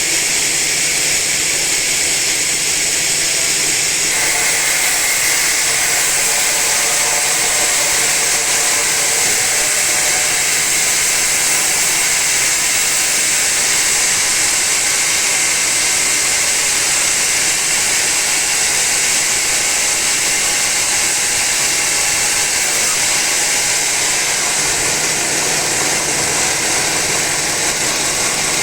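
Sawmill saw running steadily through a teak log, a loud, even machine noise with a strong high hiss; about four seconds in the sound fills out with added middle tones.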